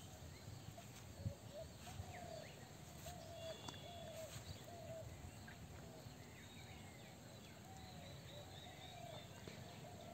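Quiet rural outdoor ambience with birds chirping and a low, arched call repeated steadily, about three every two seconds. There is one soft knock about a second in.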